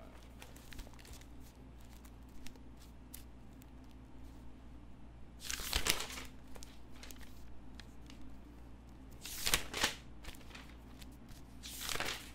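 Pages of a spiral-bound notebook being flipped over three times, each a brief papery rustle: about halfway through, again some three seconds later, and near the end, with faint small clicks of paper handling in between.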